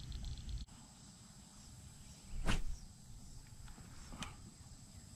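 Quiet outdoor background with one short knock about two and a half seconds in and a fainter one about four seconds in.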